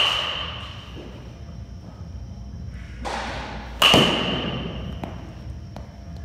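A baseball bat hitting a ball twice, about four seconds apart: once right at the start and again near the four-second mark. Each contact is a sharp crack with a ringing ping that fades over about a second.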